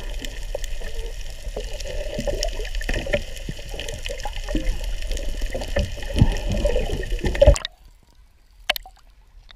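Underwater sound picked up by an action camera held below the surface: water churning and bubbling around it, with a steady low rumble and many small clicks. About two seconds before the end it cuts off abruptly to a much quieter stretch with a single click.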